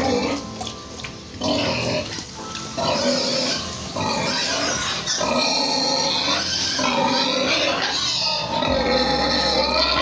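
Domestic pigs squealing: short calls at first, then long drawn-out squeals from about halfway, over background music.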